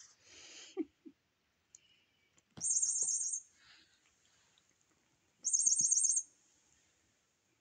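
A cat toy's electronic bird-chirp sound going off twice, each a burst of rapid high chirping a bit under a second long, about three seconds apart, with soft rustling and light knocks as the toy is batted about.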